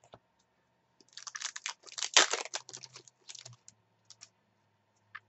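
Foil trading-card pack being torn open, its wrapper crackling and crinkling for about two and a half seconds starting a second in, followed by a few light clicks.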